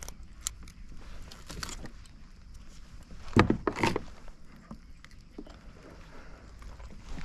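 Fishing pliers clicking against a hook while it is worked out of a largemouth bass's mouth: a scatter of small metallic clicks, with a louder brief scuffle around three and a half seconds in.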